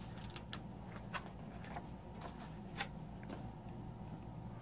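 Faint paper handling as a picture book's page is turned: a few soft ticks and rustles over a low, steady room hum.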